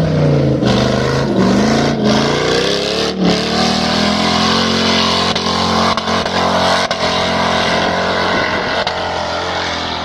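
Off-road 4x4's engine revving under load, its pitch rising and falling over the first few seconds, then held at fairly steady high revs, with a few brief knocks.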